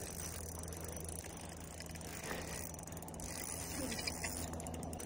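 Daiwa Caldia LT 2500S-XH spinning reel being cranked while playing a hooked fish on a bent light jigging rod, its gears and line roller giving a soft whirring, ratcheting sound. A steady low hum runs underneath.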